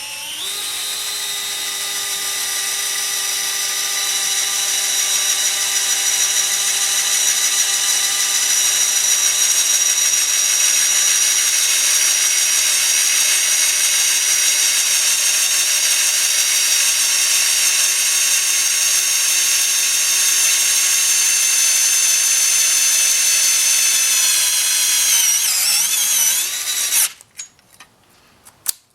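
Small cordless screwdriver motor spinning up and running steadily with a high whine as its bit drills into galvanized sheet metal. The pitch sags briefly near the end before the motor stops.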